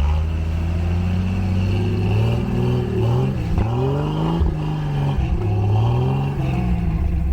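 A 4x4's engine running under load, its pitch climbing and falling as the throttle changes, with a sharp dip and quick recovery about three and a half seconds in.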